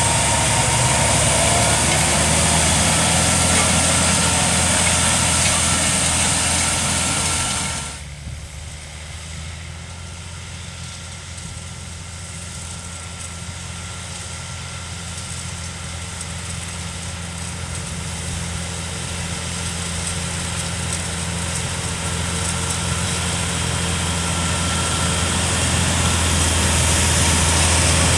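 Fendt 930 tractor's six-cylinder diesel running steadily under load while towing a Kverneland u-drill seed drill through the soil. About 8 seconds in the sound drops suddenly to a distant engine hum, which then grows steadily louder as the tractor and drill come closer.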